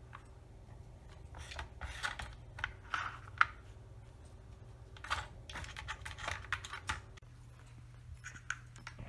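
Light, irregular clicks and clatters of the plastic parts of a Nina Ottosson Rainy Day cat food puzzle as a cat noses and paws at them, coming in short clusters with pauses between, over a faint steady hum.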